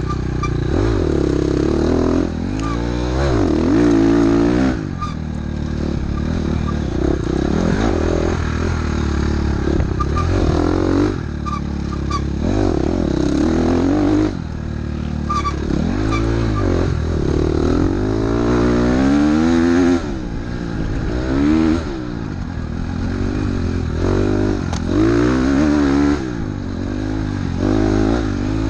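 Dirt bike engine revving up and falling back over and over as the throttle is worked along the trail, with occasional short clatter from the bike over rough ground.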